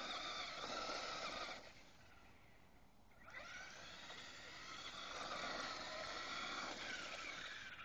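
Toy remote-control car's motor and gears whirring as it drives, with a wavering whine. It stops a little before two seconds in, then starts again after a second and a half and runs on.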